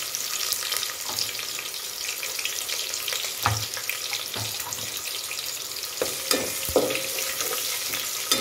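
Chopped onion sizzling and crackling in hot oil with garlic and bay leaves in an aluminium pot, the onion frying for the tempering. A few sharp knocks come through the sizzle about halfway through and near the end.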